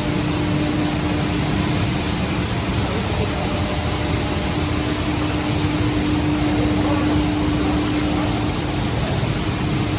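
Coffee dryer drying soybeans, its fan and motor running steadily: a constant rushing noise with a steady low hum.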